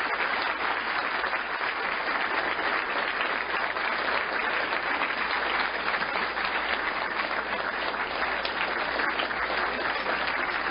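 Lecture audience applauding: many people clapping steadily at the end of a talk.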